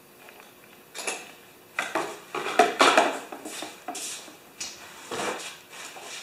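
Irregular clattering and knocking of hard objects being handled, several sharp clanks close together, loudest between about two and three seconds in.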